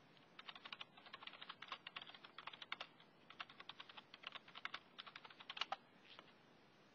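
Typing on a computer keyboard: runs of quick keystrokes with short pauses between them, stopping shortly before the end.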